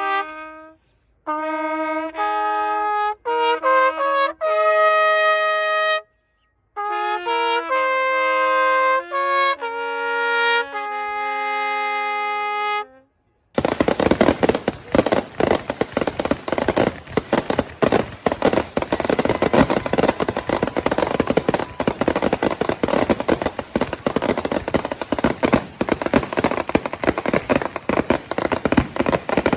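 National anthem played on brass instruments in held, phrased notes, with two brief edits to silence. About 13 seconds in it cuts abruptly to a fireworks display: dense, continuous crackling and popping.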